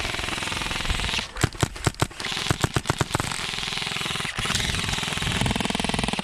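HPA-powered Tippmann M4 airsoft rifle firing on full auto in long bursts, a very fast, even mechanical rattle. For about two seconds in the middle it gives way to a run of separate sharp shots.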